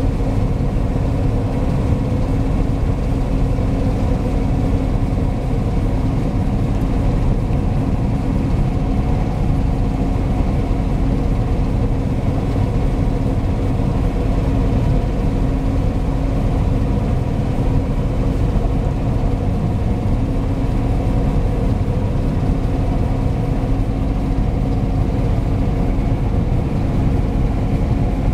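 John Deere T670i Hillmaster combine harvester running steadily while harvesting oilseed rape: a constant low engine drone with a steady hum over it.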